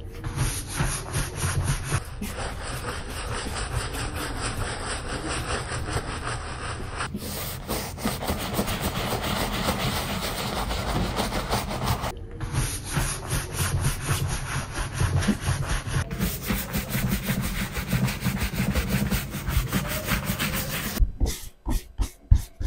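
A bristle shoe brush rubbed quickly back and forth over leather boot uppers, buffing leather balm into the leather: a fast, continuous rubbing. Near the end it slows to a few separate strokes.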